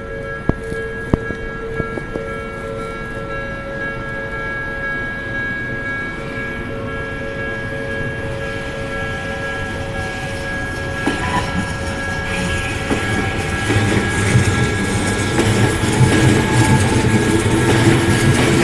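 Japanese level-crossing warning alarm sounding with steady electronic tones while an Odakyu Odawara Line electric train approaches. The train grows louder from about twelve seconds in and runs close past the crossing near the end.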